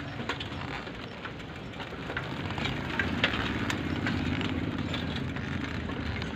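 Steady road and wind noise from a two-wheeler riding along a paved road, with a low steady hum and scattered light clicks and rattles. It grows a little louder about three seconds in.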